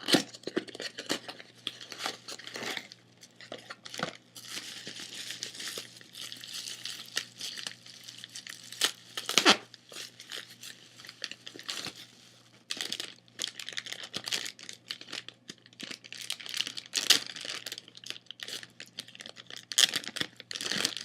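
Packaging being crinkled and torn open by hand, an irregular crackling with a few sharper clicks and snaps, as a small item is unwrapped.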